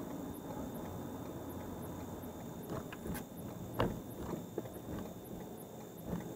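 Steady road noise of a car being driven, with a few sharp knocks, the loudest nearly four seconds in.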